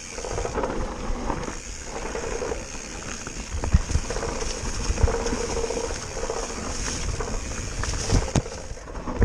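Propain Tyee enduro mountain bike descending a dirt trail at speed: tyres rolling over the ground and the bike rattling, with sharp knocks from bumps about four and five seconds in and twice near the end.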